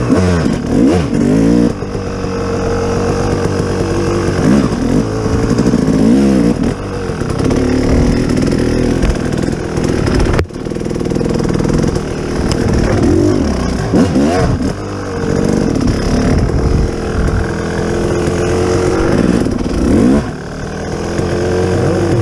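An engine running and revving up and down repeatedly, with a sharp click and a brief dip about halfway through.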